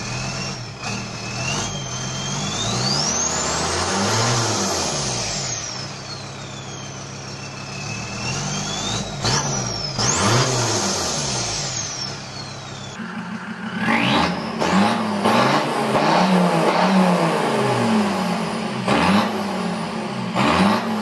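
Mercedes OM602 five-cylinder diesel revved twice on an engine stand, its note rising and falling with a high whistle following the revs. About 13 s in, it changes to a Mercedes 190's five-cylinder diesel idling at the exhaust, blipped up several times.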